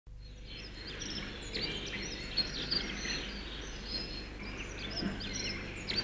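Woodland birds chirping and calling, many short whistles and chirps overlapping, over a low steady hum.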